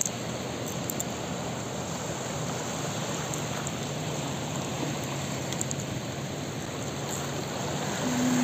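Steady rush of muddy floodwater and surf where a flooded river runs into the sea, with a faint low hum joining about halfway through.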